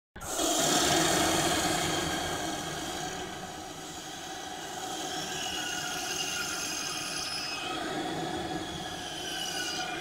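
Cartoon monster snoring sound effect: one long drawn-out breath with thin, wavering high whistling tones over a noisy rasp, loudest near the start, dipping about four seconds in and swelling again.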